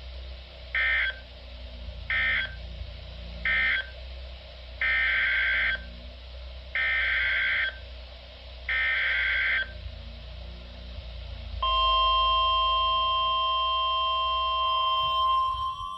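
NOAA Weather Radio Emergency Alert System data tones: three short squawking bursts of the end-of-message code, then three longer bursts of the next alert's SAME header, each about a second apart. They are followed by a steady single-pitched alert tone (the weather radio's 1050 Hz warning tone), with rising tones joining near the end.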